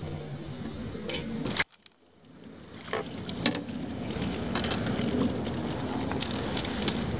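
A spinning reel being handled and cranked close by, giving many quick irregular clicks over a steady rustle. A low rumble at the start cuts off abruptly under two seconds in.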